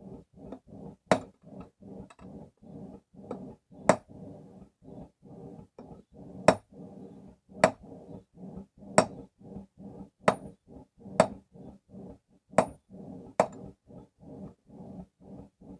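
Steady hand-hammering of hot steel on a stake anvil forged from an old wagon axle with a carbon tool-steel face: a quick rhythm of dull blows, about three or four a second, broken every second or so by a louder, ringing metallic strike.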